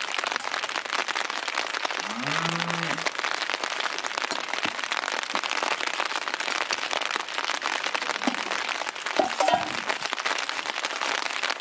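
Steady patter of light rain, a dense crackle of small drops. A short low call rises about two seconds in, and a brief knock comes near the end.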